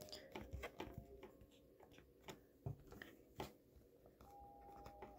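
Near silence with a few faint, scattered taps and clicks: fingers pressing Play-Doh into a plastic toy grill mould.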